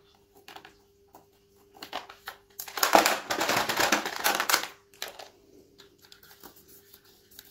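Small scratches and clicks of a thin wooden stick picking old substrate off an orchid's stem inside a clear plastic pot. About three seconds in comes a two-second burst of crackling and rustling as the flimsy plastic pot is handled and the bark and clay pebbles inside shift.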